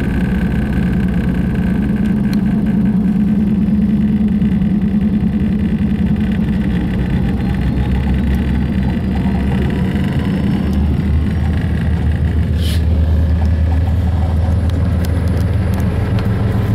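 Diesel locomotives of a Norfolk Southern freight train, an EMD SD70M among them, passing a grade crossing with a steady low engine rumble, heard from inside a car.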